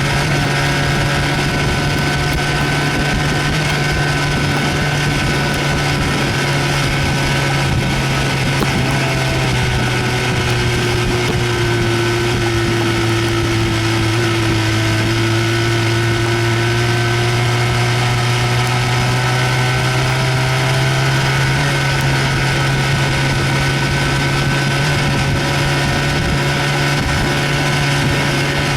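1970 Evinrude Sportster 25 hp two-cylinder two-stroke outboard motor running steadily under way, with its exhaust baffle gasket leaking badly.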